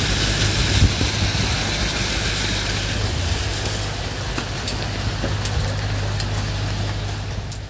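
Steady wind rushing and rumbling across the microphone, an even noise with a strong low buffeting.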